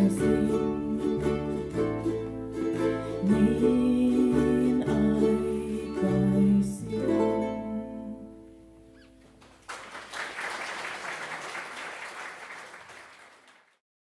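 Ukulele ensemble with bass ukulele and a woman singing, strumming the end of a song and finishing on a last chord that rings out and fades. About ten seconds in, a few seconds of audience applause follow and fade away.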